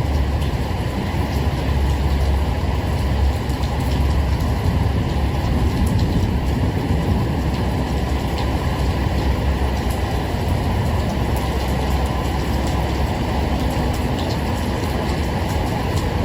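Steady rain with a deep, continuous rumble of thunder underneath, heavier in the first half, and a few sharp drop ticks.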